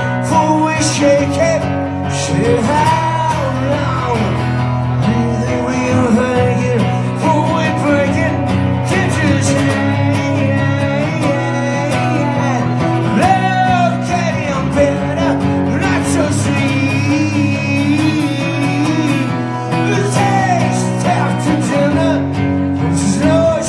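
A man singing a song to guitar accompaniment, the sung melody running on throughout.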